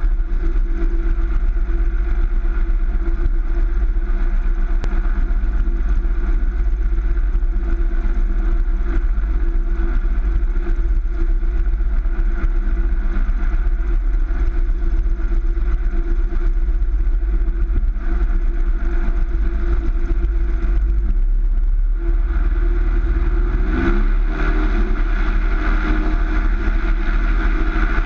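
Van's RV-7's 200 hp Lycoming IO-360 four-cylinder engine running at low power on the ground, propeller turning, with a steady low rumble. About 22 seconds in, the engine note shifts slightly.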